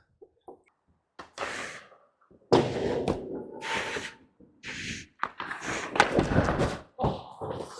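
On-ice hockey noise on a goalie's body mic: a few scraping stretches and several sharp knocks and thuds, the loudest about 2.5 s, 6 s and 7 s in.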